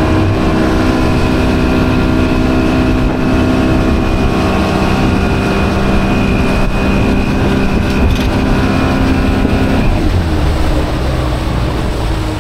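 Outboard motor pushing a small fishing boat across a lake, running at a steady pitch with water and wind noise. About ten seconds in the engine note drops lower.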